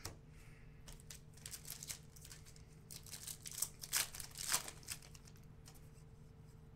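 Foil wrapper of a trading-card pack crinkling and being torn open, a quiet run of short rustles and rips that is busiest in the middle.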